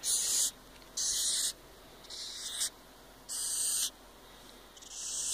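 Wide-horned hissing cockroach hissing in five short bursts, about one a second, each about half a second long. It is the disturbance hiss of an agitated, handled roach, made by forcing air out through its breathing pores.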